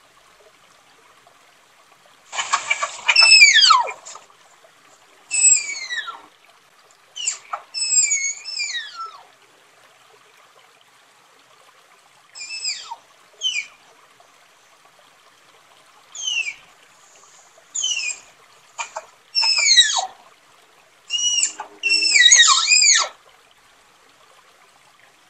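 Tapir calling: a series of shrill whistles that each slide steeply down in pitch, coming singly and in quick overlapping clusters with short silent gaps between.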